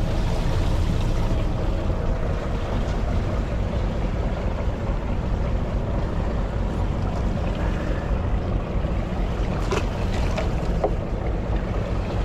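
A fishing boat's engine running steadily, a continuous low rumble, with wind buffeting the microphone. There are a few light clicks about ten seconds in.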